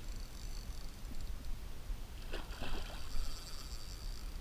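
Water splashing and sloshing as a hooked carp thrashes in the shallows at the landing net, loudest in a burst of splashes about two and a half seconds in.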